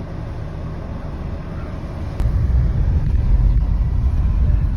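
Low rumbling vehicle noise, which jumps sharply louder after a click about two seconds in.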